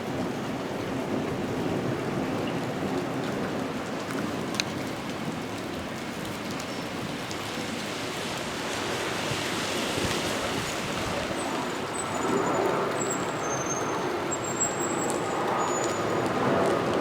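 Steady rain falling, an even continuous hiss that grows a little louder about two-thirds of the way in.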